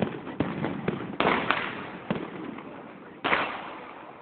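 Aerial fireworks shells bursting overhead: a run of about six sharp bangs, the loudest about a second in and just past three seconds in, each followed by a fading echo.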